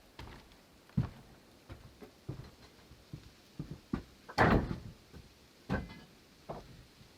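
A run of irregular knocks and thumps, roughly one a second, with one longer, louder clatter about four and a half seconds in.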